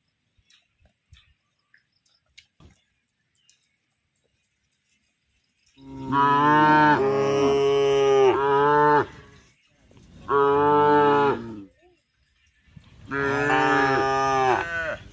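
Cow mooing: three long, loud moos after a few quiet seconds, the first the longest.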